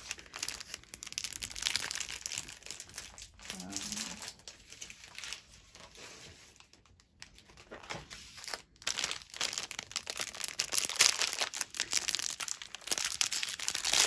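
Thin plastic bags of diamond painting drills crinkling as they are handled, in a run of close crinkles that eases off about six seconds in and picks up again, loudest near the end.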